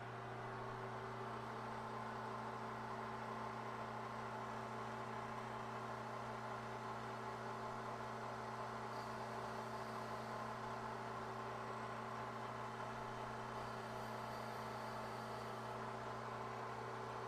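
Bridgeport vertical milling machine running steadily, a constant motor and spindle hum, while its end mill cuts into the plastic hub of a Scotch-Brite wheel to bore it out.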